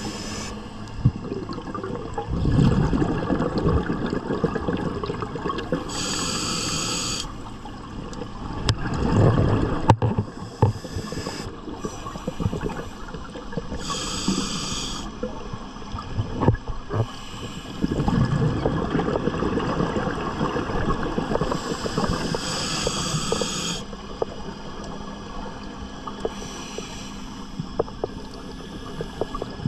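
Scuba regulator breathing underwater: a hiss on each inhalation alternating with a rumbling burst of exhaust bubbles on each exhalation, in a slow cycle of about eight seconds.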